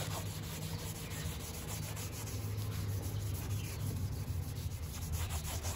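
Cloth rubbing in repeated strokes on painted metal below a pickup's windscreen, buffing off surface rust with polish compound.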